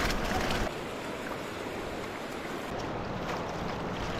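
Steady rush of flowing water, with a louder low rumble for the first moment that stops abruptly.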